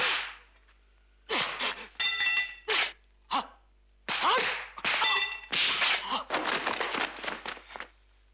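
Kung fu film fight sound effects: a quick series of sharp metallic clangs with a ringing tone, as of blades and a metal staff striking, followed by a rapid run of punch and blow impacts, with a few fighters' shouts among them.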